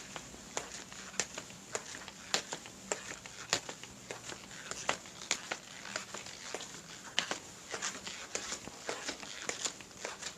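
Footsteps: a person walking, each step a sharp click or scuff, about two to three a second at an uneven pace, over a faint steady hum.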